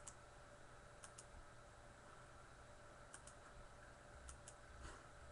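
Faint, scattered clicks of a computer keyboard, a few single and paired taps spread out over quiet room tone.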